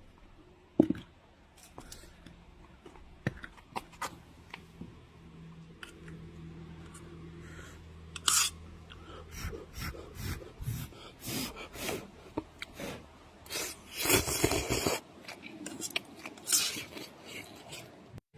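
Eating from a cooking pot with chopsticks: scattered light clicks and scrapes of utensils against the pot, with a louder rustling burst about fourteen seconds in.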